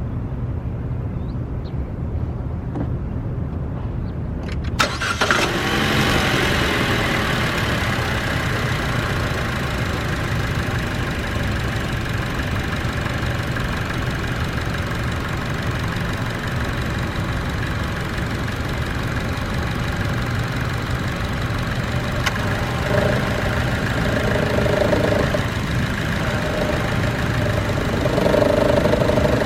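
2014 Chevy Cruze's 1.4-litre turbo four-cylinder idling with the growling noise that comes on with the A/C at idle, from under the exhaust manifold; a newly replaced A/C compressor has not cured it. About five seconds in the sound suddenly gets louder and fuller, and near the end a mid-pitched drone comes and goes.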